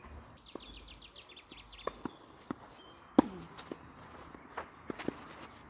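Tennis ball being played on a clay court: sharp pops of racket strikes and ball bounces, the loudest a racket hit close by about three seconds in, with footsteps on the clay between. A bird trills rapidly in the first second and a half.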